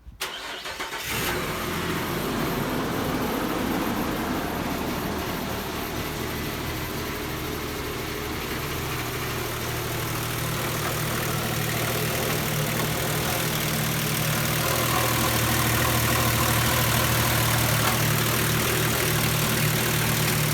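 A Nissan Pathfinder's 4.0 V6 petrol engine is cranked and catches within about a second, then idles steadily. The idle has a cylinder misfire, put down to a faulty coil pack.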